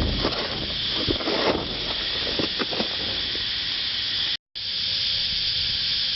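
Scattered metal knocks and scrapes as the electric window regulator of a 1970s Chevrolet C-series truck is worked out of the door, over a steady hiss. The sound cuts out briefly about four and a half seconds in, and only the hiss follows.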